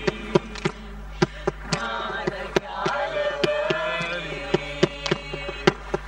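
A group of voices singing a song together, with sharp percussive beats about three times a second keeping time.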